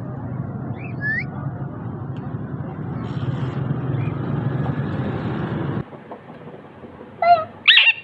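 Alexandrine parakeet giving two short, loud squawks in quick succession near the end, after a steady low rumble that carries one faint short chirp about a second in.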